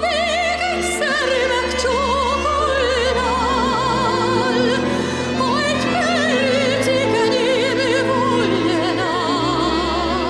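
Recorded song: a woman sings a slow, sentimental melody in an operatic style with wide vibrato, over orchestral accompaniment with sustained low notes.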